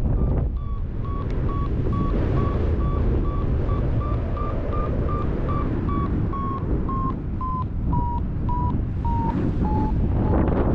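Wind buffeting the microphone in flight, with a paragliding variometer's climb beeps, about two and a half a second, signalling ascent in a thermal. The beep pitch slowly falls in the second half as the climb weakens.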